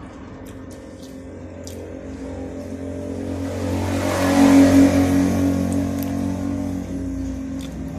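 A motor vehicle passing close by on the road, its engine note building to a peak about four and a half seconds in and then fading away.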